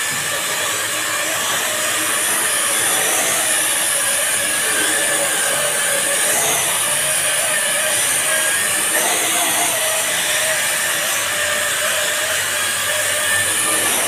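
WLtoys V333 quadcopter's four motors and propellers running steadily as it hovers low, a high whine over a rush of air from its strong downdraft.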